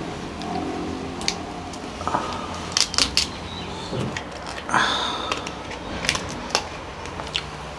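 Kitchen scissors snipping through the shell of a cooked king crab leg, with scattered sharp clicks and cracks of the hard, spiny shell; the loudest crack comes about five seconds in.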